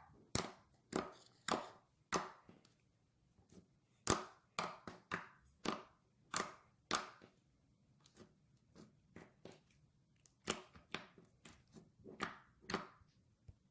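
Slime being squeezed and pressed in the hands, making a run of sharp clicks and pops, irregular, about one to two a second, with a quieter stretch in the middle.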